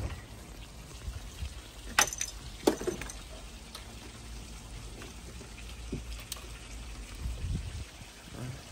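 Faint running, trickling water, broken by two sharp knocks about two seconds in, under a second apart.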